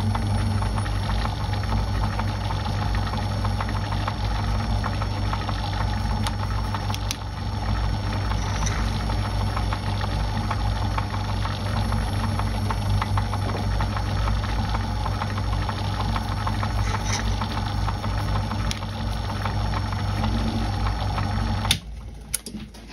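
Metal lathe running steadily, with a fine even rhythm, while a reamer works in the bore of a spinning brass bearing. The lathe is switched off near the end and the sound stops abruptly.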